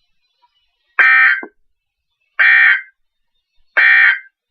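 Three short, identical bursts of NOAA Weather Radio SAME digital data, each a harsh electronic buzz about half a second long, spaced a little over a second apart. This is the EAS end-of-message (EOM) signal that closes the weekly test broadcast.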